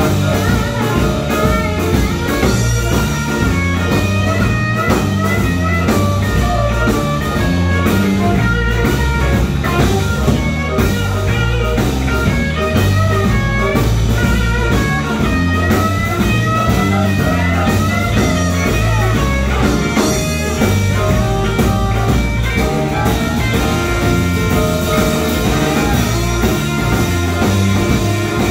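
Live blues band playing an instrumental passage: an electric guitar leads with bending notes over drums, bass guitar and keyboard.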